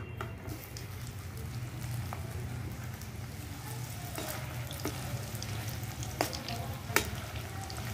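Water-soaked soya chunks frying in hot ghee in a steel kadhai: a steady sizzle that starts as they drop in. From about four seconds in, a perforated steel skimmer stirring them makes a few sharp clicks against the pan.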